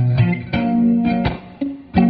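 Background music led by a plucked guitar, notes picked at a steady pace of about two a second.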